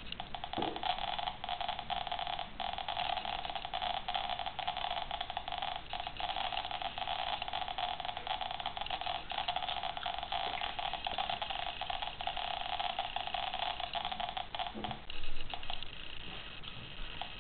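Homemade Geiger counter clicking very rapidly, about thirty counts a second, from the radium paint of a watch dial held over its Geiger–Müller tube; the clicks run together into a steady buzzing tone. About fifteen seconds in the buzz stops as the watch is moved off the tube, with a thump just after, leaving only scattered clicks.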